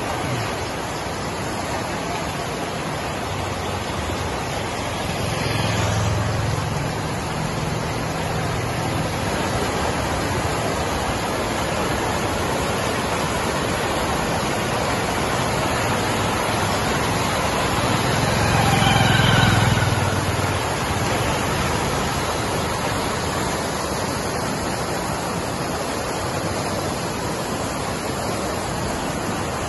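Fast-flowing floodwater rushing across a road, a steady even rush of water that swells louder twice, around six seconds in and again around nineteen seconds in.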